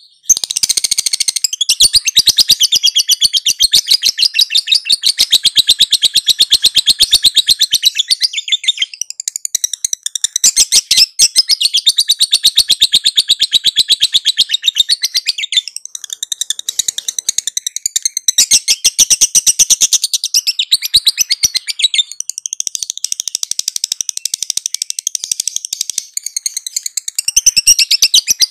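A lovebird's long 'ngekek' song: a continuous run of rapid, high-pitched chattering notes. It starts just after the opening and is held almost without a break, with only brief dips in loudness.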